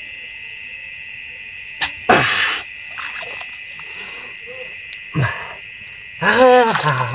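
Steady chorus of frogs and insects, broken by a sharp click and then a loud splash about two seconds in as a multi-pronged bamboo fishing spear is thrust into the water, and another splash about five seconds in. Near the end a person gives a loud wordless call.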